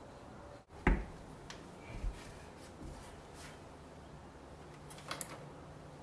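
A single dull thump about a second in, then a few lighter knocks and small clicks, over a faint low hum.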